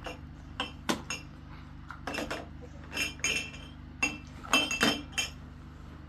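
Kitchenware clinking: about a dozen sharp, ringing strikes of dishes and utensils at uneven intervals, with a steady low hum underneath.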